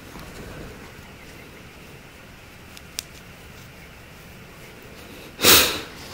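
A single loud, sharp sniff through the nose about five and a half seconds in, over otherwise quiet room tone with one faint click about three seconds in.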